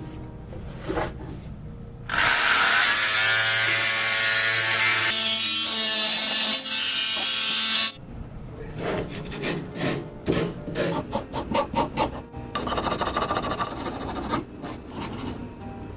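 A power tool cutting into wood for about six seconds, its pitch sagging as it loads. It is followed by a run of quick, irregular strokes on wood.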